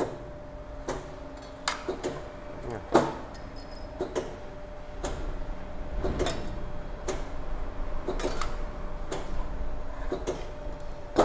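AMADA CSW-220 hydraulic corner notcher's electric hydraulic pump humming steadily, with irregular sharp metallic clacks of the shear blades and steel sheet pieces knocking on the steel table, the loudest about three seconds in. A low rumble thickens from about halfway.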